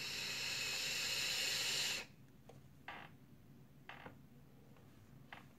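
Vape tank's coil firing during a draw: a steady sizzling hiss of air and vapour that cuts off suddenly about two seconds in. A few faint, short breathy puffs follow as the vapour cloud is exhaled.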